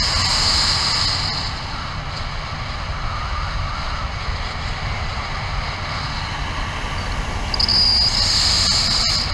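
Wind rushing over the microphone of a pilot-mounted camera on a Nervures Rafale 13 speed wing flying at full speed with the trimmers fully released. A high whistle is strong for the first second and a half, fades, and comes back strongly about eight seconds in.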